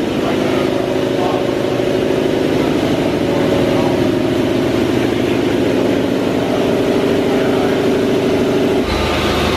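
Jenny electric piston air compressor running steadily as it pumps its tank up toward 175 PSI, a dense hum with a fast even pulsing. About nine seconds in the sound shifts and a deeper hum joins.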